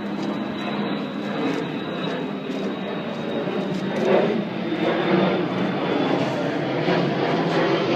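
An engine running steadily, a low continuous hum with a faint high whine above it.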